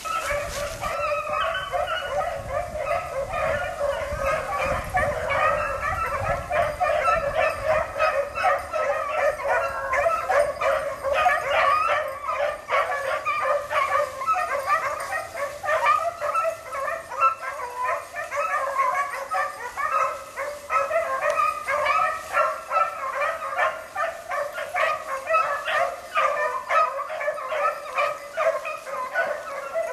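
A pack of beagles baying while running a rabbit, many voices overlapping in an unbroken chorus of howls and yelps.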